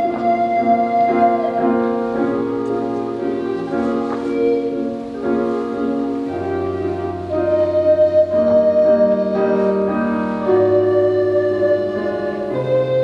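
School recorder ensemble playing an arrangement of classical music: several parts in harmony on long held notes over a moving bass line.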